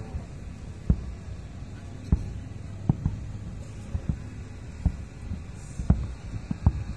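Aerial fireworks shells bursting: a run of sharp, deep booms at an irregular pace, about one or two a second, over a steady low rumble.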